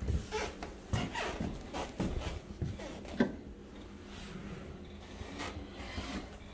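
Footsteps and rubbing handling noise from a walking person carrying the phone. There are a few soft knocks in the first three seconds and a sharper one a little after three seconds, then it goes quieter.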